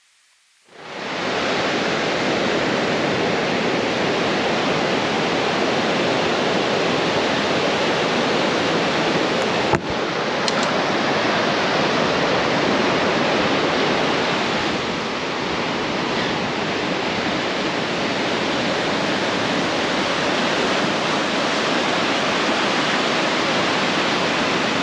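Ocean surf washing on a beach, a steady, even noise with no lulls that starts abruptly about a second in after near silence. A short click about ten seconds in.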